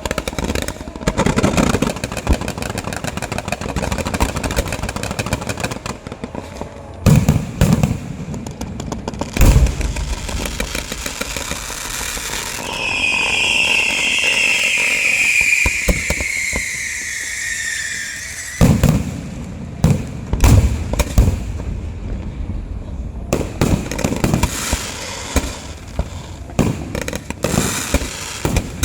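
Fireworks and firecrackers going off: dense rapid crackling, broken by several loud booming bursts, with a long falling whistle lasting several seconds in the middle.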